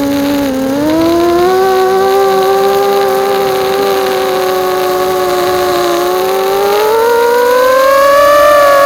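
Motors and propellers of a Bee210 FPV racing quadcopter whining, several close pitches holding steady, then rising in pitch near the end as the throttle goes up.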